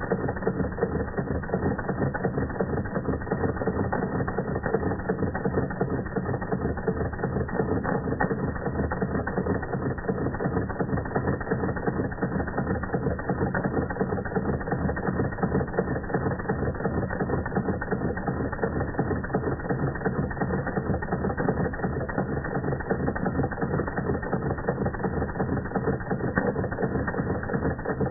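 Doll 338/1 tinplate toy steam engine running steadily under steam: a fast, even mechanical clatter from its cylinder and flywheel drive, holding the same speed throughout.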